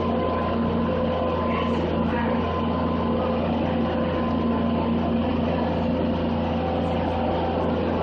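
Skid steer engine running steadily at an even pitch, a constant low hum with no revving, as the machine creeps forward under load.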